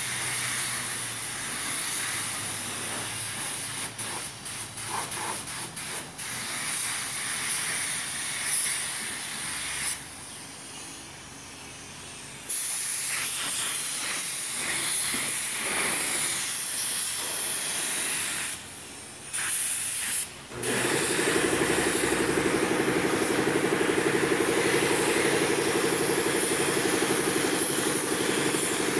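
Compressed-air paint spray gun hissing as the trigger is held, cutting off briefly three times when it is released. About two-thirds of the way in, a steady machine hum starts and runs on under the hiss.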